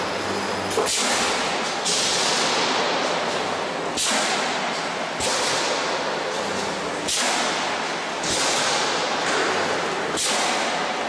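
Pneumatic cylinders and valves on a pressed-steel transformer radiator production line venting compressed air in repeated sharp hisses, about seven of them, each cut in suddenly and fading, one every one to two seconds, over the steady running of the machinery.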